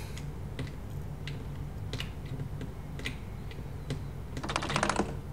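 Scattered single clicks of a computer keyboard, then a quick run of rapid clicks about four and a half seconds in, over a low steady hum.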